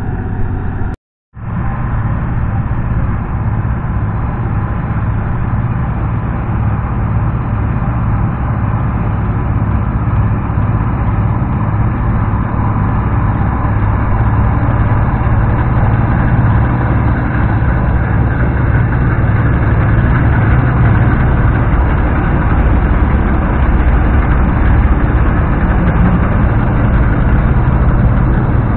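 Bizon Super Z056 combine harvester running steadily while it cuts rye, its six-cylinder diesel engine and machinery droning, growing slightly louder as it comes close. The sound drops out for a moment about a second in.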